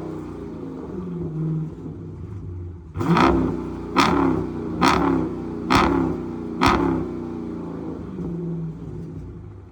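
Dodge Scat Pack's 392 HEMI V8, with its mid mufflers cut out, running loud. About three seconds in, it is blipped five times about a second apart, each blip starting sharply and falling away.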